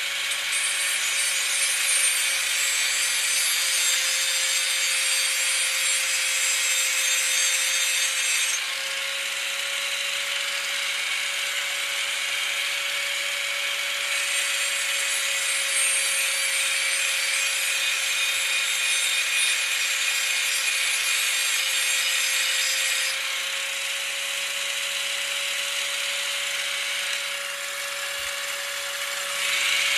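Handheld angle grinder sharpening the chipped edge of a steel lawn mower blade: a steady motor whine under a harsh grinding hiss. The grinding eases for a few seconds about a third of the way in, and again for most of the last quarter, while the motor keeps spinning.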